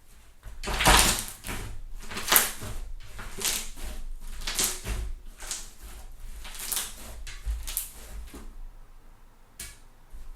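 Thick fluffy slime being squeezed and stretched by hand, giving a run of crackling pops from trapped air, about one to two a second, the loudest about a second in.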